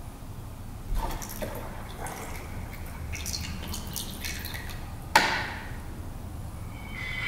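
Water pouring from a plastic graduated cylinder through a small plastic funnel into a plastic bottle, trickling and splashing in uneven spurts as it fills. A single sharp knock about five seconds in.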